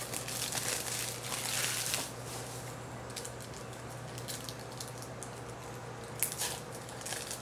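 Trading cards and a foil pack wrapper being handled: crinkling for about the first two seconds, then light clicks and taps as cards are sorted, over a steady low hum.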